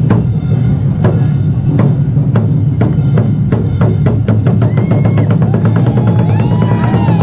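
Awa Odori drum ensemble: large taiko drums beating a steady rhythm of strikes about twice a second, growing busier in the second half, over a heavy low drum rumble. Rising and falling shouted calls join in about five seconds in.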